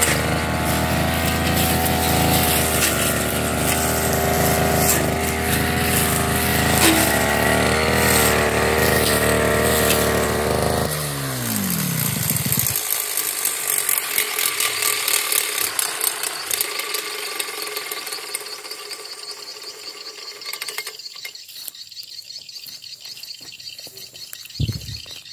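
Backpack brush cutter's petrol engine running steadily, then switched off a little before halfway, its pitch falling as it winds down over about two seconds. Quieter clicks and rustling follow, with a single thump near the end.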